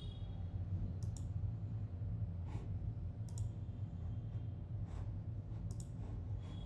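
A few scattered computer mouse clicks, some in quick pairs, over a steady low hum.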